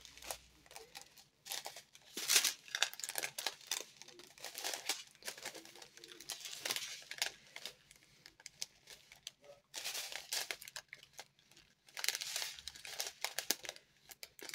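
Small clear plastic bags of diamond painting drills crinkling as they are handled, in irregular bursts.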